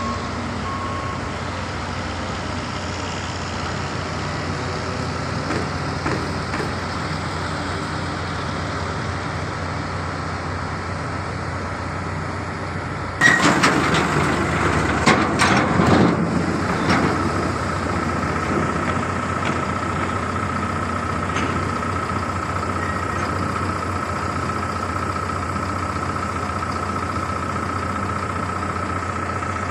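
Heavy diesel construction vehicles (dump trucks and an excavator) running with a steady engine drone. A truck's reversing beeper stops about a second in. About halfway through there is a sudden loud rushing burst with a few sharp knocks lasting a few seconds, followed by a steady high whine.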